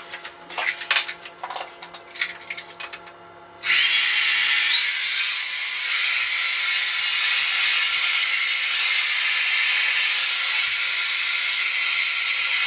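A few clicks and knocks of handling, then a handheld hair dryer switched on about four seconds in: its high whine rises briefly, then it runs steadily at full blow.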